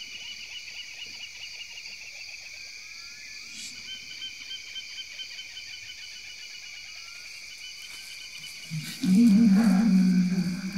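Night chorus of crickets and other insects: steady high-pitched trilling. Near the end, a much louder low-pitched sound comes in and lasts about two seconds.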